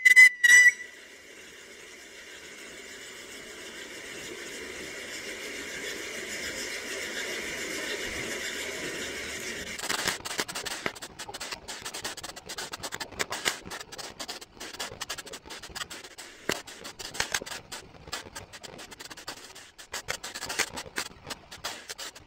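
2 Ballerina's Ball ground fountain firework burning. A falling whistle cuts off within the first second. A steady hiss of spraying sparks then builds for several seconds and, about ten seconds in, turns into dense irregular crackling that carries on.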